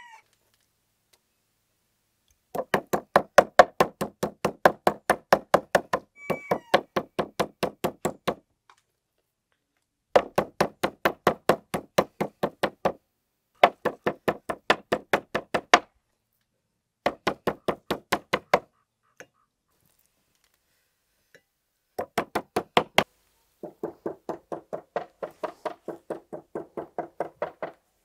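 Meat tenderizing mallet pounding thin slices of meat, in quick runs of strikes about five a second with short pauses between runs.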